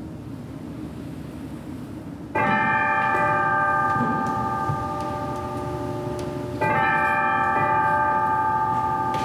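Altar bell struck twice, about four seconds apart, each strike ringing on and fading slowly. It marks the elevation of the Host at the consecration.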